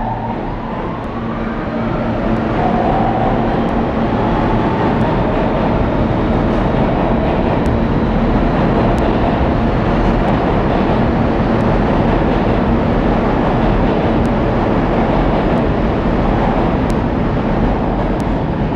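An R160 subway train moving past along the platform, its wheels on the rails making a loud, steady rush with scattered clicks. A rising motor whine in the first few seconds marks the train picking up speed. The noise falls away as the last car clears near the end.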